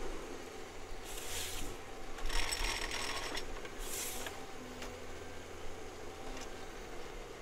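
Forestry machine working: a steady low engine hum, with three bursts of hissing about one, two and four seconds in.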